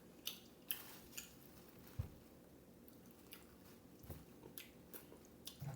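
Faint close-up chewing of food: scattered soft wet mouth clicks and smacks, with a few dull low thumps.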